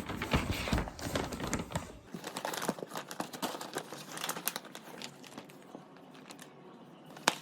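Crinkling and rustling as a newly bought item is handled and worked at to make it unfold, with bumps during the first two seconds and one sharp click near the end.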